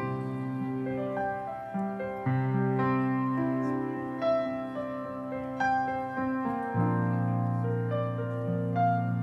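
Slow keyboard music in piano tones: held chords that change every few seconds, with single notes struck above them.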